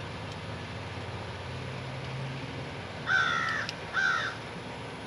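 Two crow caws about a second apart, the first longer than the second, over a steady low hum.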